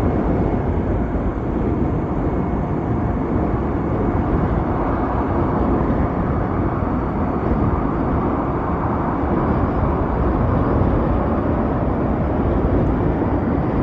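Steady wind rush and road noise while riding an Ather 450X electric scooter.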